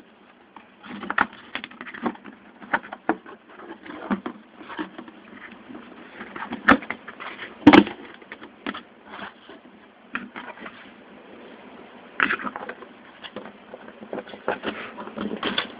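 Cardboard model-kit box being opened and handled: flaps and lid scraping, rustling and knocking in irregular bursts, with a sharp knock a little before halfway.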